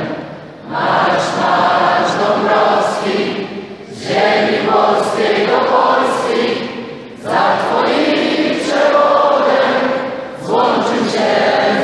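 Large crowd of volleyball fans singing a chant together, in repeated phrases of about three seconds with a brief dip between each.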